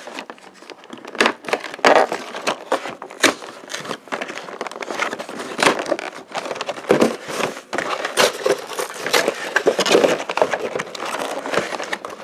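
Stiff clear plastic blister insert and cardboard packaging being handled and pried apart: a dense, irregular run of sharp cracks, crackles and clicks.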